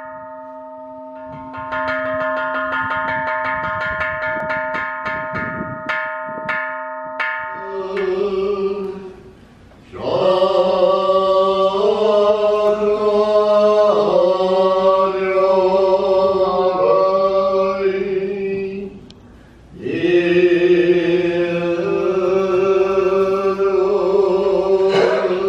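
Slow music: a steady held chord with light repeated notes, then from about eight seconds in, long sung phrases of held notes that step in pitch, in the manner of a chant or hymn.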